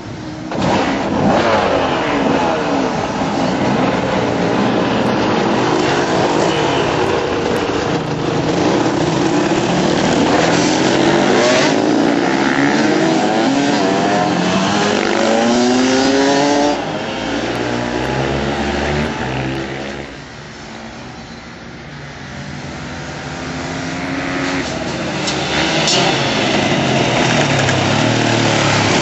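Several off-road motorcycle engines revving as a group of dirt bikes rides past, their pitches overlapping and rising and falling with the throttle. The sound comes in loud about a second in, drops back for a couple of seconds about two-thirds of the way through, then builds again as more bikes come by.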